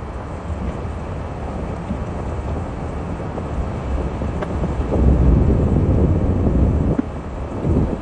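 Vehicle on the move: a steady low rumble of engine and road noise, growing louder about five seconds in and easing just before seven.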